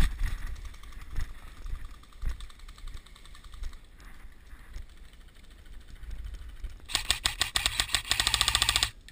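Airsoft electric gun firing a fully automatic burst of about two seconds near the end: a fast, even rattle of shots. Before it, fainter rapid clicking of more distant airsoft fire over a low rumble.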